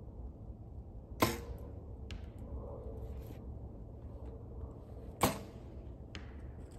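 Two compound bows shot one after the other, about four seconds apart: each a sharp snap of the string and limbs at release, followed by a fainter tap less than a second later.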